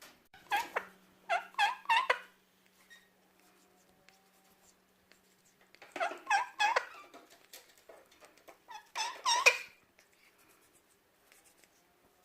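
Male Indian ringneck parakeet chirping in three bouts of short, loud, pitched calls: one at the start, one about six seconds in, and one about nine seconds in.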